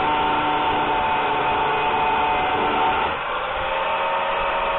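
Angle grinder with a cutting disc grinding into a steel power steering rack shaft, a steady loud whine. About three seconds in it comes off the metal and runs on a little quieter.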